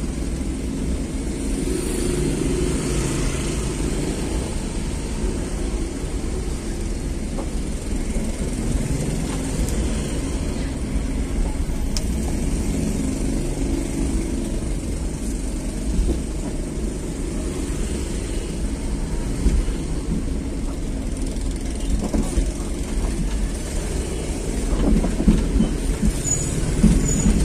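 Vehicle engine and tyre noise heard from inside the cab while driving along a narrow street: a steady low rumble, with a few louder knocks near the end.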